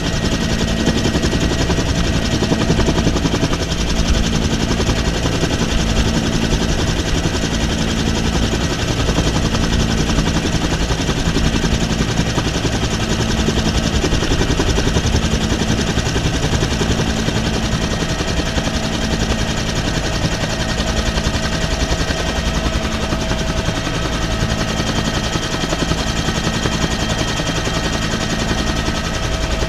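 Helicopter in flight, heard from inside the cabin with the side door open: a loud, steady, fast thumping of the rotor blades over the turbine's constant tone and rushing air.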